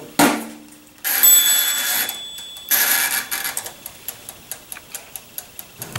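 Black & Decker Toast-R-Oven door shutting with a metallic clunk, then its mechanical timer dial being wound with a rasping whir, after which the timer ticks steadily at about three ticks a second.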